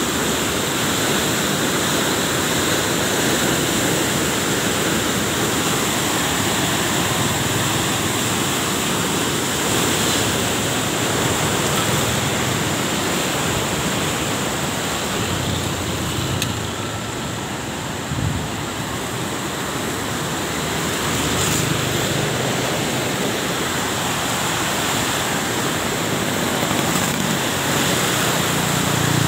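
Muddy river in flood after heavy rain, a fast torrent rushing and churning below a bridge: a steady rush of water, dipping slightly around the middle.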